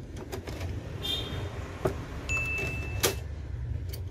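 Plastic clicks and knocks of an ink cartridge being handled and pressed into the carriage of a Canon G1000 ink-tank printer, with the loudest click about three seconds in. A steady high beep sounds for under a second just before it.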